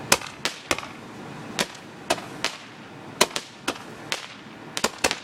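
Fireworks going off: a run of about a dozen sharp, irregularly spaced cracks and pops, some close together in pairs.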